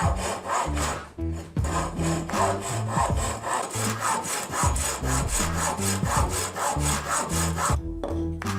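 Hand saw cutting wood in quick, even back-and-forth strokes, pausing briefly about a second in and again near the end, with background music underneath.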